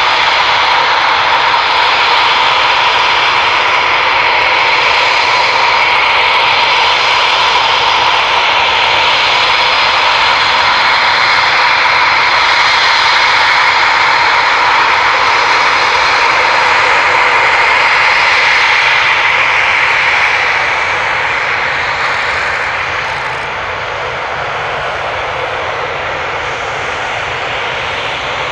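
Eurofighter Typhoon's twin Eurojet EJ200 turbofans running at taxi power: a loud, steady jet whine over a rushing hiss. It eases off a little about twenty seconds in, as the jet turns side-on onto the runway.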